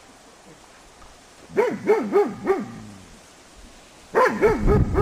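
A dog on a leash barking in two quick series of about four barks each, barking toward the white-clad 'ghost' figures of a temperament test. A low rumble sets in near the end.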